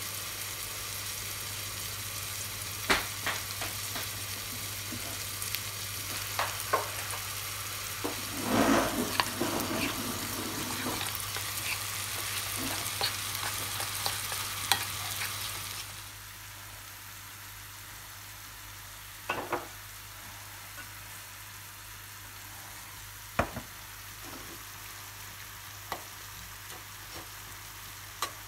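Hand stirring wet gram flour batter in a ceramic bowl, with scattered sharp knocks against the bowl over a steady hiss. After a cut about halfway, a metal fork clinks a few times against a bowl while mashing tinned fish.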